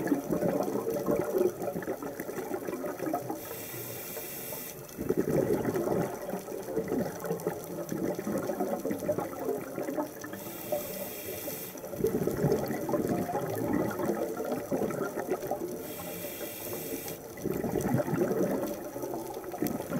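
A scuba diver's regulator breathing underwater: three inhalations, each a hiss of about a second and a half, roughly six seconds apart, each followed by a longer rush of exhaled bubbles.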